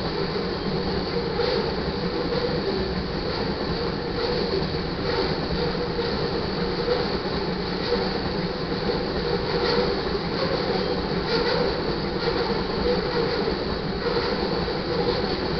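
Loaded crude oil tank cars rolling past on steel rails: a steady wheel-on-rail rumble with faint irregular clicks from the wheels and a thin, high wheel squeal above it.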